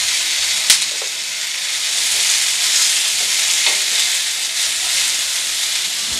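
Tomatoes and onion pieces sizzling in hot oil in a nonstick frying pan, a steady high hiss. A sharp click about a second in and a few lighter knocks come from kitchen tongs turning the vegetables against the pan.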